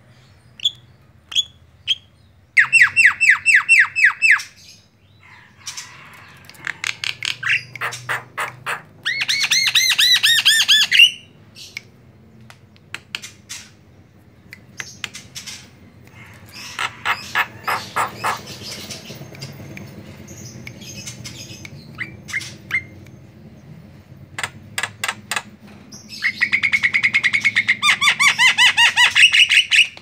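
Male Javan myna (jalak kebo) singing: scattered short whistles and chirps broken by several bursts of fast repeated notes, the longest burst near the end.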